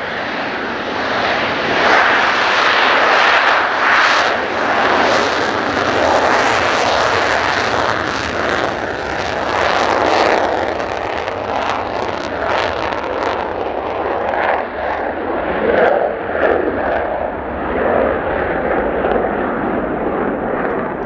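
Mitsubishi F-2 fighter's single F110 turbofan engine in afterburner on the takeoff roll and climb-out: loud jet noise that swells in the first couple of seconds, crackles sharply through the middle, then slowly fades and wavers as the jet climbs away.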